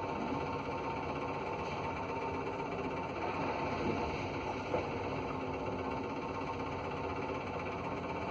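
Ship's engines running with a steady hum and vibration, heard from inside a cabin, with a small knock about four and a half seconds in.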